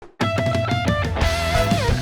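Music with guitar and bass starts abruptly just after the start: plucked notes repeating over a steady bass line, with a sliding guitar note near the end.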